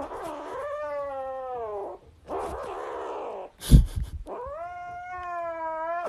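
Grey kitten giving long drawn-out meows: two long pitched calls with a rougher, breathier one between them. A loud thump lands a little after the middle.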